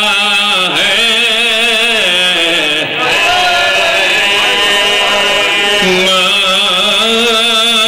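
A man's voice chanting in long, wavering held notes: a zakir's melodic majlis recitation delivered into a microphone.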